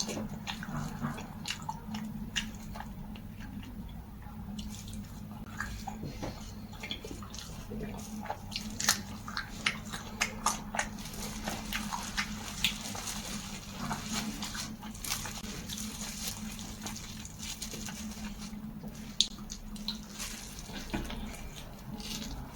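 Close-up chewing and mouth sounds of a person eating a rolled pancake with cured pork: irregular wet smacks and clicks over a steady low hum.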